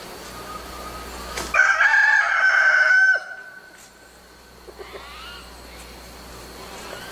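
Rooster crowing: one loud, long crow of about a second and a half, starting about a second and a half in. Fainter, shorter calls come before and after it.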